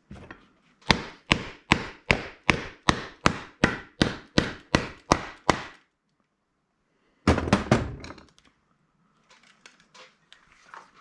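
A hammer striking hard about a dozen times in a steady rhythm, roughly two and a half blows a second, as part of breaking apart a handheld scanner's housing. About seven seconds in comes a short loud clatter, then a few light clicks of parts being handled.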